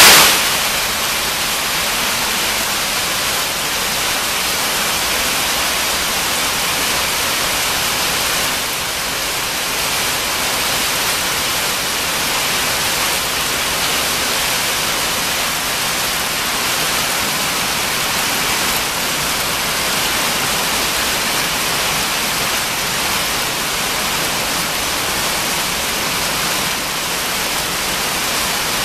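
Small hail mixed with rain pelting brick pavers and grass, a steady dense hiss that keeps up without a break.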